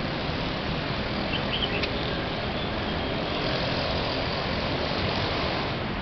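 Steady hum of city traffic, with a couple of short high chirps about a second and a half in.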